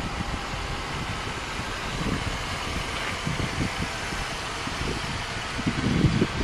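A steady vehicle hum, with uneven low rumbles of wind buffeting the microphone that are strongest near the end.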